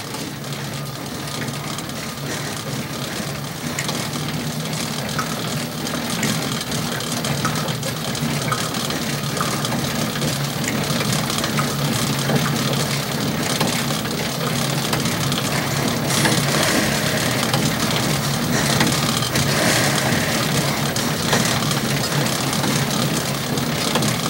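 Spinning-bike flywheels whirring steadily as riders pedal, with a constant low hum that grows gradually louder.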